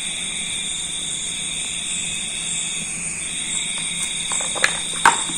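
Steady high-pitched ringing drone in several pitches, with two short clicks near the end.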